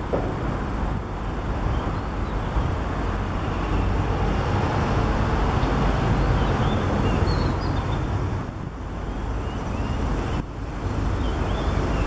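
Steady rumble of road traffic, with a few faint high chirps now and then.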